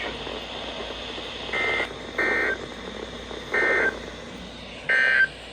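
Four short bursts of EAS SAME data tones: a rapid two-tone digital warble over a background hiss. Sent right after the voice message, these are the end-of-message code that closes the alert.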